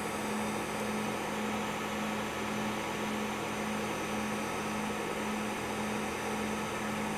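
TIG welding arc on thin 1.6 mm stainless steel, run without pulse: a steady hiss with a constant low hum underneath, even throughout.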